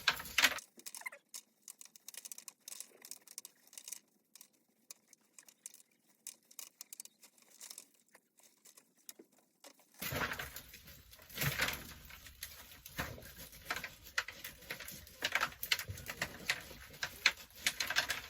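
Sunflower seeds being rubbed by hand out of a dried sunflower head: a dense crackling and pattering of seeds and dried florets breaking loose and dropping. It is quieter at first and louder from about halfway through.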